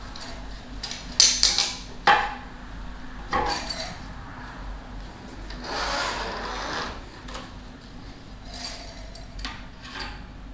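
Honda Monkey cylinder head being worked loose by hand and slid off the cylinder, with its locating dowels coming away with it: a few sharp metal knocks and clinks in the first few seconds, a longer scraping rub around the middle, then a few lighter knocks.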